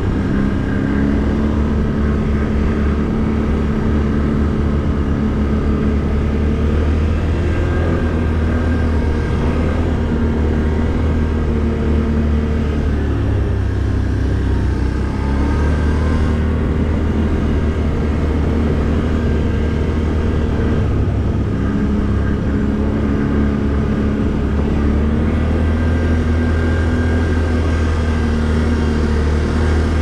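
ATV engine running steadily at low road speed, heard from the rider's seat, its pitch easing off and picking up again a few times with the throttle.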